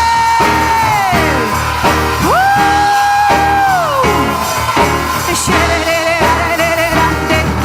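Worship band music with a steady low pulse, over which one amplified voice holds long high cries. The cries slide down in pitch about a second in and again around four seconds in.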